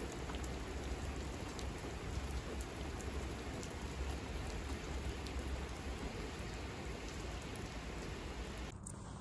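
Steady rain falling on a street, with scattered drop ticks and a low rumble underneath. It stops suddenly near the end.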